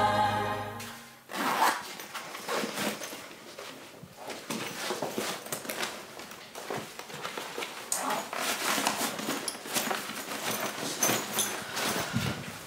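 Theme music fades out in the first second. Then irregular rustling and small clicks and knocks of things being handled and rummaged through.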